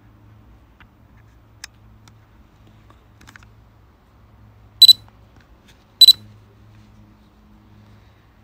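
Two short, very loud, high-pitched electronic chirps from the DJI flight app on the phone, each a quick double, about a second apart, over a faint low hum.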